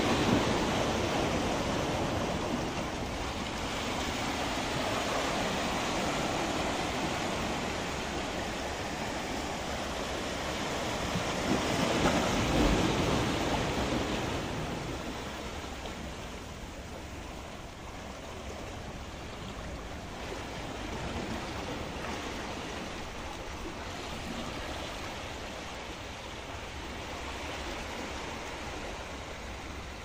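Sea waves washing and splashing against the rocks and concrete blocks of a breakwater, a steady rushing wash. It swells a little before the middle and then settles quieter.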